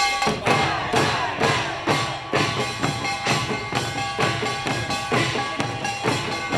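Korean pungmul percussion troupe playing: handheld drums struck in a steady, driving beat of about two to three strikes a second, with a metallic ringing tone held over the beat.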